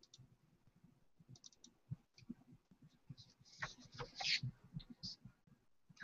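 Faint scattered clicks and taps of a computer mouse and keyboard, a little denser and louder midway through.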